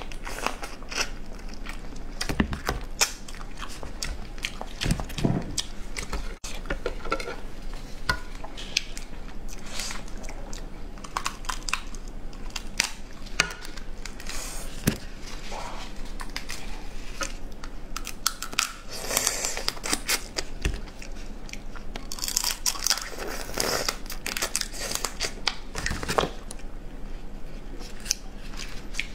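Close-up eating of a steamed swimming crab: the shell and legs cracking and tearing as they are pulled apart by hand, with biting and chewing at the meat, in many short crackles and clicks.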